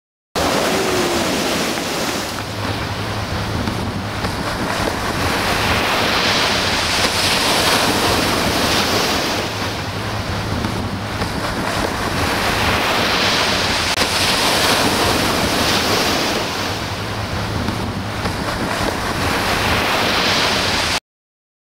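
Ocean surf breaking and washing up the beach, the hiss swelling and easing every few seconds, with wind rumbling on the microphone. It starts and cuts off abruptly.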